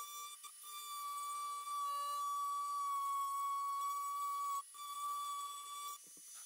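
Dremel rotary tool running at high speed with a fine boring bit, cutting an outline groove into an axe handle: a steady high-pitched whine that sags slightly in pitch midway. The whine cuts out briefly a few times and stops near the end.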